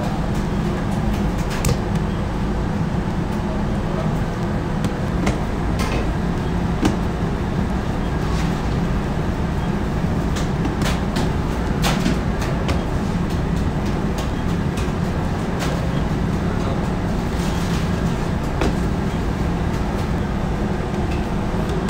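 Steady low hum of bakery machinery, with scattered short taps and pats from dough being handled and set down on a floured wooden bench.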